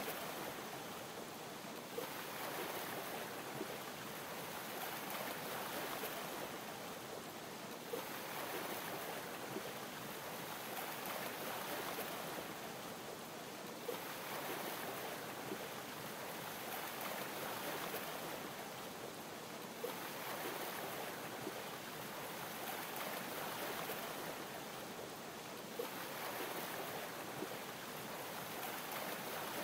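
Champagne fizzing steadily over lapping water, swelling gently about every six seconds with one small click at each swell.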